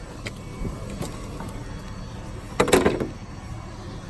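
A chair clattering as it is picked up and handled for loading as scrap, with one loud ringing clatter about two and a half seconds in, over a low steady rumble.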